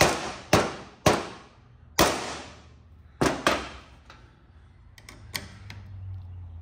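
Six sharp metallic strikes, each ringing briefly, with uneven gaps over the first three and a half seconds: a screwdriver being struck to bite into a stubborn, stripped-out screw on an old chainsaw's recoil starter. A few light metal clicks follow near the end as a wrench is fitted onto the screwdriver's shank.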